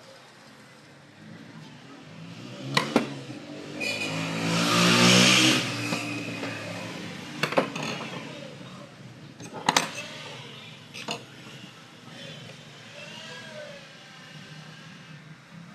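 A motor vehicle passing by, building to its loudest about five seconds in with its engine note falling in pitch, then fading. Several sharp clicks or knocks come over it.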